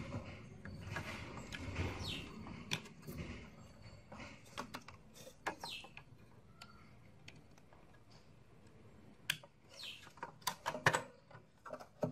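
Clicks, taps and scrapes of metal and plastic parts being handled as a hard drive is fitted into a desktop PC case, with a quick run of sharper clicks near the end. A few short chirps that fall in pitch come through between them.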